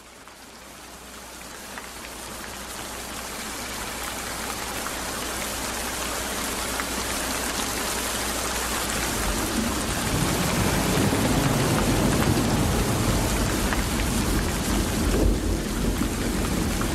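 Heavy rain with rolling thunder, fading in from quiet. The thunder rumbles in from about ten seconds in and grows deep and continuous.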